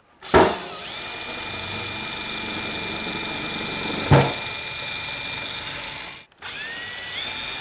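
Power drill boring a hole through the steel lid of a 55-gallon drum, running steadily, with a single knock about four seconds in. It stops briefly just after six seconds, then spins up again with a whine that steps up in pitch.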